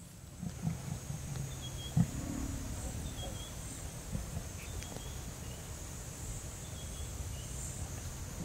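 Lioness growling low, a warning at a spotted hyena standing close by.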